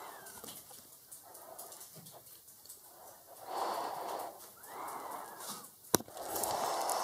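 A person breathing heavily close to the microphone, several breaths each lasting about a second, with a sharp click about six seconds in.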